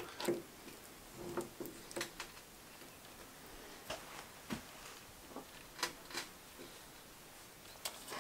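Faint, scattered clicks and knocks from the universal joint of a Land Rover Series 1 front-axle half shaft being worked by hand. The joint is worn out.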